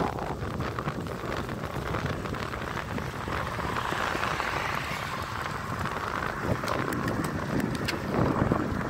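Riding noise from a bicycle on the move: wind rushing over the microphone and tyres running on the road, with a few sharp clicks or rattles about seven seconds in.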